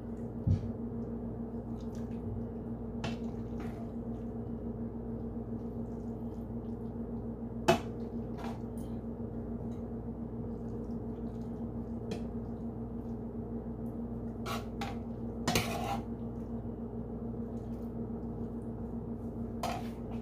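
A ladle clinking against a pot and a ceramic bowl as vegetable soup is served: a handful of separate clinks at irregular times, the sharpest about eight seconds in. A steady low hum runs underneath.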